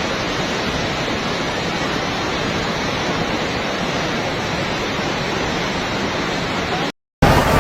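Floodwater rushing past in a swollen river, a steady, even rush of water noise. It cuts off abruptly for a moment near the end.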